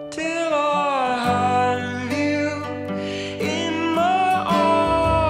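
Background music led by acoustic guitar, with a gliding melody line over it and a low bass that comes in about a second in.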